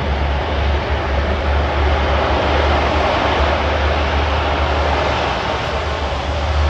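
Lockheed C-130 Hercules four-engine turboprop running on the runway before take-off, a steady drone with a deep rumble underneath.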